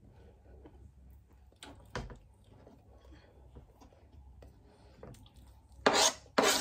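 Crumbled feta cheese being dropped by hand into a glass salad bowl: soft handling sounds with a light knock about two seconds in. Near the end, two short, loud scrapes as the rest of the cheese is scraped off a plastic cutting board into the bowl.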